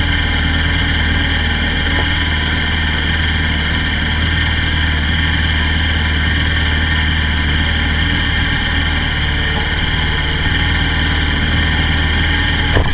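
Honda VFR400's V4 engine idling steadily, picked up close by the bike's onboard camera.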